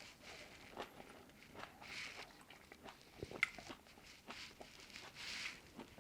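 Quiet close-up chewing of soft Shine Muscat grapes: an irregular string of small wet clicks and squelches, with a few soft bursts.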